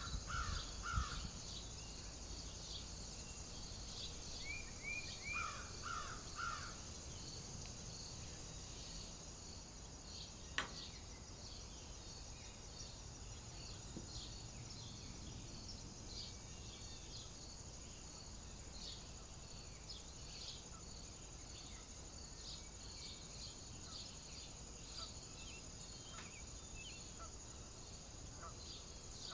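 Natural outdoor ambience: a steady high-pitched insect chorus, with a bird giving three quick calls at the start and three more about five seconds in. A single sharp click about ten seconds in.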